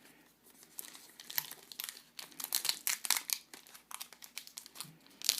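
Crinkling and crackling of a Topps Heritage baseball card pack wrapper being handled, a run of quick irregular crackles starting about a second in.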